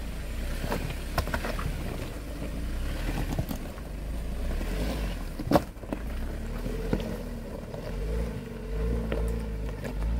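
Jeep Wrangler driving: a steady low rumble of engine and road, with occasional sharp knocks and rattles, the loudest a little past halfway.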